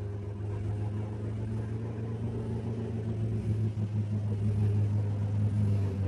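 Engine of an old 4x4 SUV running steadily under load as it wades through a deep river, a low even drone that grows a little louder about halfway through.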